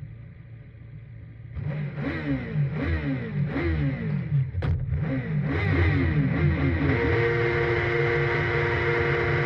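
Racing sidecar engine, first ticking over low. From about a second and a half in it is revved up and down in quick blips, about two a second. It then settles into a steady high-revving note that climbs slowly.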